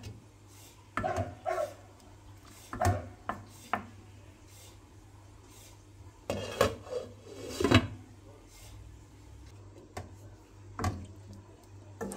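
Glass pot lid with a metal rim clinking and knocking against the pot as it is lifted off, in a string of separate clatters of cookware, the loudest pair about halfway through, over a low steady hum.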